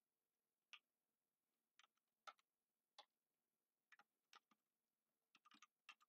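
Faint, scattered single clicks of computer keyboard keys being pressed one at a time, about ten over the few seconds, with a small cluster near the end; otherwise near silence.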